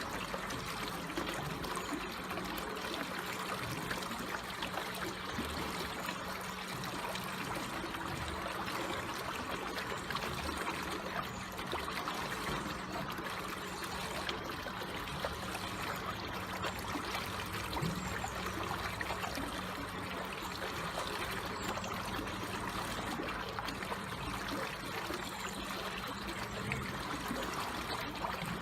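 Water flowing slowly and steadily, a gentle trickling stream.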